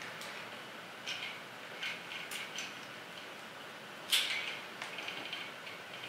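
Soft clicks and scrapes of plastic toy parts being handled and pressed together, with one sharper click about four seconds in.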